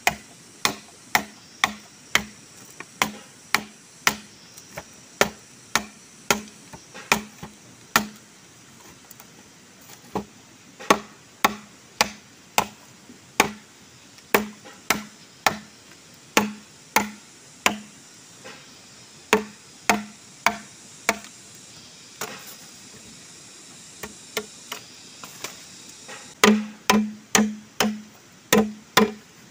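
Machete chopping into a green bamboo pole: sharp strikes about two a second, each with a short low ring. There are a couple of brief pauses, and a quicker, louder run of strikes near the end.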